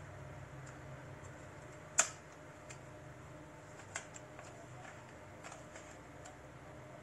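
Light handling clicks over a faint steady room hum: one sharp click about two seconds in, a smaller one about two seconds later, and a few faint ticks.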